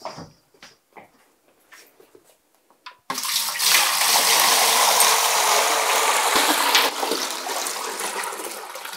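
Hot water poured from a steel pot into a large aluminium stockpot: a loud, steady gushing splash that starts suddenly about three seconds in and eases off toward the end. Before it, a few light knocks of the pot being handled.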